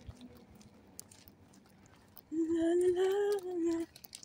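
A woman's voice humming one drawn-out note for about a second and a half, starting a little past the middle, after two seconds of near quiet.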